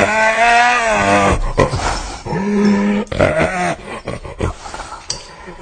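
Hyena laughing: a drawn-out, wavering call about a second and a half long, then two shorter calls, trailing off into weaker, broken sounds in the last second or so.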